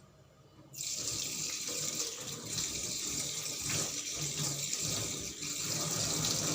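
Water tap turned on about a second in, running steadily into a sink.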